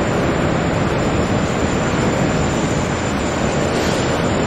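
Jet engines of an Airbus A380 airliner running as it rolls on the runway: a loud, steady rushing noise.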